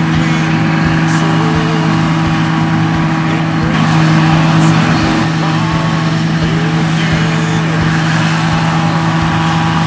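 Combine harvester running steadily in a field, a constant low engine drone.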